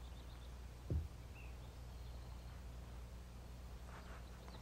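Faint outdoor room tone: a steady low hum, a single soft thump about a second in, and a faint short bird chirp just after it.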